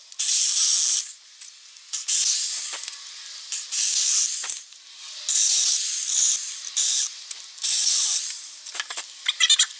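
Power drill with a step drill bit boring holes through a soft plastic panel, in about five short bursts of cutting. A few light clicks near the end.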